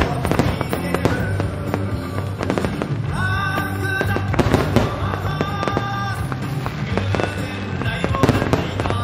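Fireworks display set to music: rapid shell bursts and crackles throughout, over loud music with a steady beat from the show's loudspeakers.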